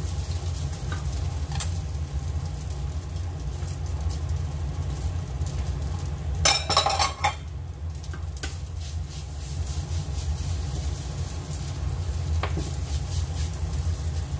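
Wooden spatula stirring and scraping fried rice in a frying pan, with a light sizzle, over a steady low hum. A brief loud clatter comes about six and a half seconds in.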